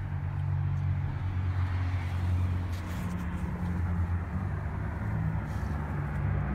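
Peterbilt four-axle flatbed truck's diesel engine running, a steady low drone heard from inside the cab.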